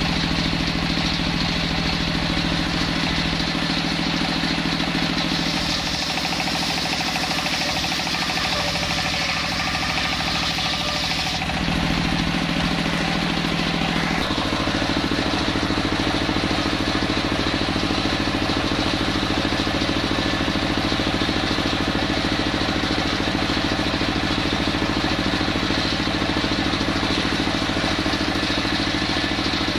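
Engine-driven circular sawmill running steadily while its large circular blade rips a log lengthwise. The engine note changes about 12 seconds in and again about 14 seconds in.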